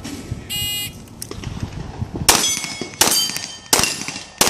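A shot timer's short electronic start beep, then a .40-calibre pistol fired four times, a little under a second apart. Each shot is followed by the ringing of a struck steel target plate.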